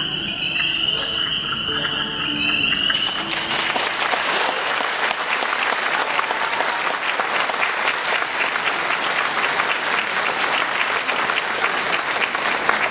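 The last notes of the dance music, which ends about three seconds in; audience applause then begins and continues.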